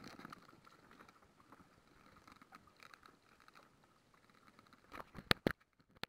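Handling noise from fish being unhooked from a handline over a wooden boat: light crackles and rustles, then a few sharp knocks about five seconds in, two of them loud and close together.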